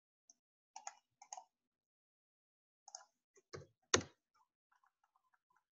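Scattered clicks of a computer keyboard and mouse: a few short pairs of clicks in the first three seconds, a louder, heavier click about four seconds in, then a run of faint ticks.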